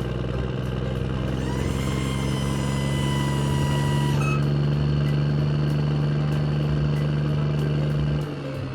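A vehicle engine sound runs at a steady drone, with a higher whine over it for a couple of seconds. The drone stops shortly before the end.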